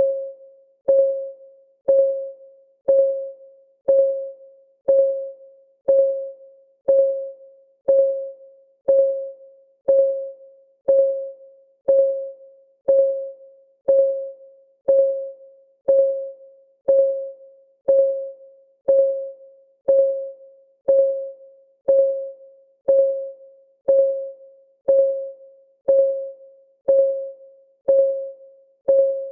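Clock ticking sound of a countdown timer, one tick a second, steady and even. Each tick is a sharp click with a short, pitched ring that dies away quickly.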